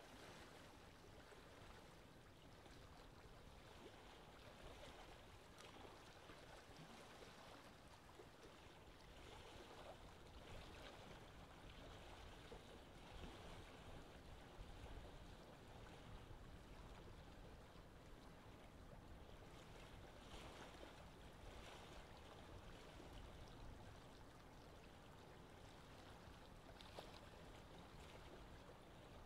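Faint, steady rush of wind and choppy sea water, an even hiss that swells a little now and then.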